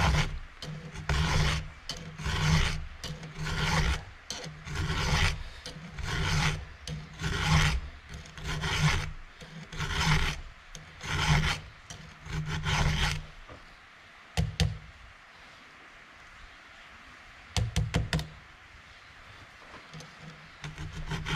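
A hand file rasping back and forth across a cutter tooth of a Stihl chainsaw chain in steady strokes, about one every two-thirds of a second: the chain being sharpened by hand. The strokes stop about thirteen seconds in, and a few short clicks follow.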